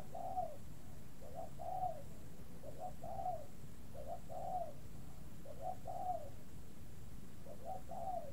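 A bird calling over and over with a low two-part call, a short note and then a longer arched one. It repeats about every one and a half seconds.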